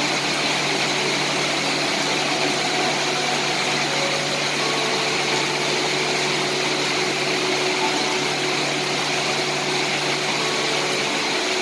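Steady rain, an even unbroken hiss, with a faint steady low hum beneath it.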